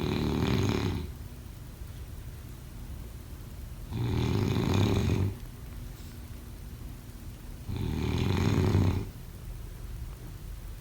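A sleeper snoring, three snores about four seconds apart, each lasting a little over a second. The first is already under way at the start.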